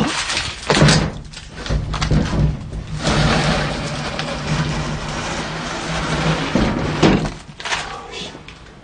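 Rustling and handling noise, with a sharp thump about a second in and another about seven seconds in; the rustle is loudest from about three to six and a half seconds, over a faint low hum.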